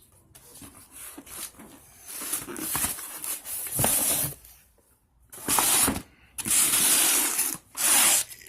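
A cardboard parts box being opened: several bursts of rustling and tearing of packaging, each lasting about a second.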